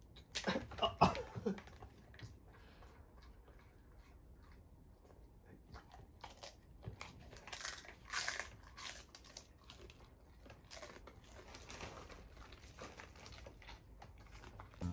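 A golden retriever biting and crunching a hard dried chew treat in repeated crisp crunches. The loudest cluster comes about a second in, followed by further groups of crunching.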